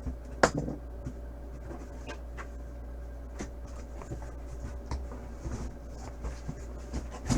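Packaging of a boxed football helmet being handled and opened: light scratchy rubbing and rustling with scattered small taps, and one sharp click about half a second in.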